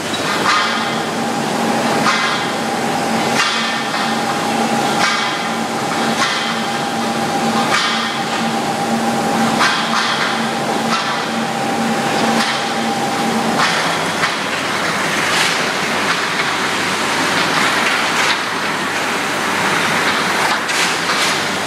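Hot piercing mill line for seamless steel tubes running: a continuous heavy industrial din with metallic clanks about every second and a half and a steady hum. About two-thirds of the way through the hum stops and the noise becomes a denser, even rush, with fewer clanks.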